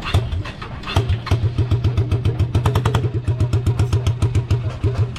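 Motorcycle engine running through an opened-up exhaust fitted with bigger pipes, giving a loud, evenly pulsing note of about eight beats a second that starts about a second in and stops near the end.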